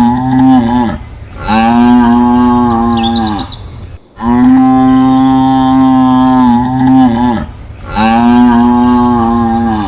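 Buffalo mooing: a series of long, drawn-out moos, one after another with short pauses. The longest moo comes in the middle, lasting about three seconds.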